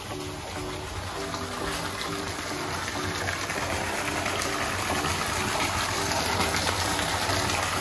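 Water gushing steadily, growing a little louder toward the end, with faint music playing a repeating low melody underneath.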